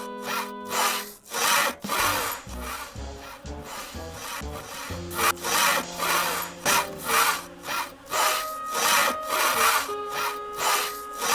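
A saw cutting through wood in a long run of back-and-forth strokes, roughly two a second, with faint music underneath.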